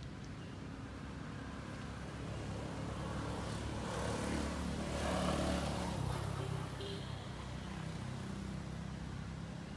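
A motor vehicle passing by, its sound swelling to a peak around the middle and fading away, over a steady low hum.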